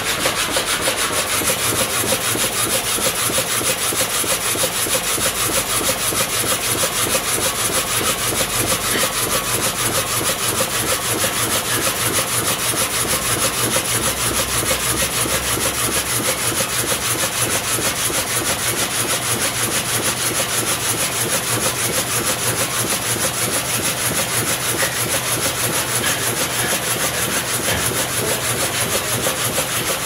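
Horizontal reciprocating frame saw ripping lengthwise through a large tree trunk: the blade rasps through the wood back and forth in a fast, steady rhythm, with the machine's rattle.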